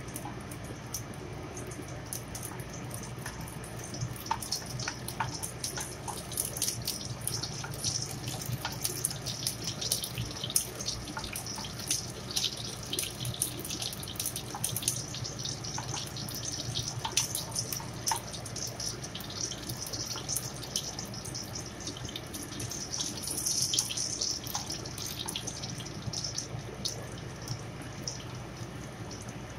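Sliced ginger sizzling in melted cooking fat in a nonstick frying pan, a steady crackling hiss full of small pops that swells around the middle and again near the end.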